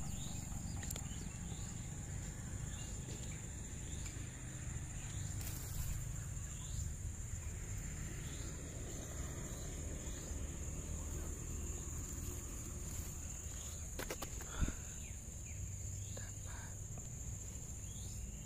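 Field ambience of an insect trilling steadily on one high note, with scattered short bird chirps and a low rumble on the microphone. A single sharp tap sounds about fifteen seconds in.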